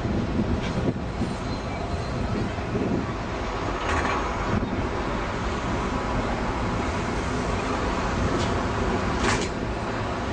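Steady rumble of vehicles running, broken by a few short sharp clicks or knocks.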